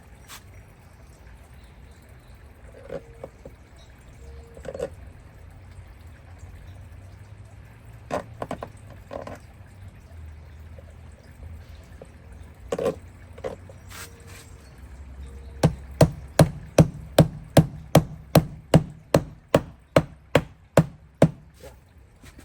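Hammer driving nails into a wooden pipe support: a few scattered knocks, then a fast, even run of about sixteen hammer blows near the end.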